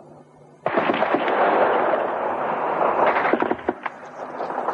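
Heavy gunfire breaks out suddenly about half a second in. It runs as a dense, continuous volley for about three seconds, then thins into separate shots near the end.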